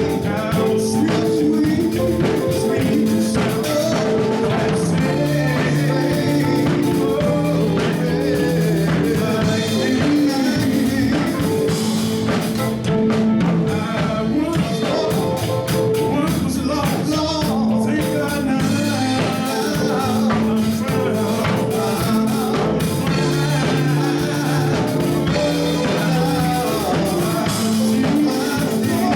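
Live band music with drum kit, guitar and singing, playing steadily.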